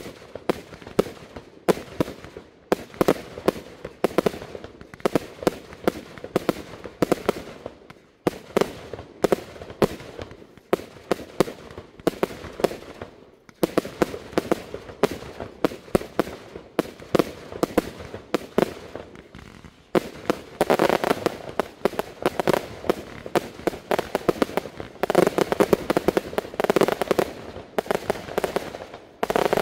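Fireworks display: a rapid barrage of aerial shells launching and bursting, many sharp bangs in quick succession. There are short lulls about 8 and 13 seconds in, and the firing grows denser in the last third.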